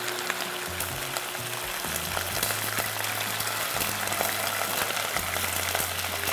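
Frying sizzle from beef ribs searing in a steel pot, with a few light clinks of a spoon and ladle against a saucepan as stock is stirred into fried onion. Background music with low held notes plays underneath.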